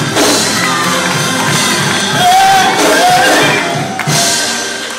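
Live gospel praise-break music with a steady driving beat, and voices from the congregation shouting and whooping over it.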